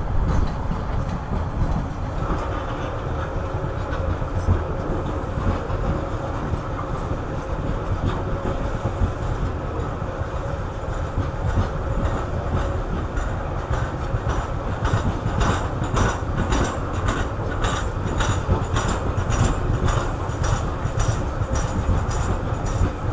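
Loaded coal hopper wagons of a long freight train rolling past with a steady low rumble. From about two-thirds of the way in, the wheels click over the rail joints about twice a second.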